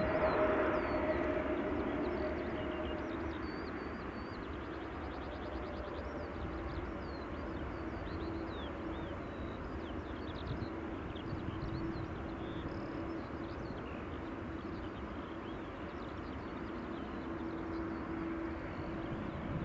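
Airbus A320neo's Pratt & Whitney PW1100G geared turbofan engines running as the airliner moves along the ground: a steady rush with two held humming tones, loudest in the first couple of seconds and then even.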